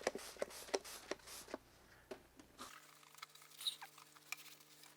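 Faint, irregular clicks and short rustling spurts from a hand spray bottle of water and a cloth wiping compound residue off a plastic headlight lens.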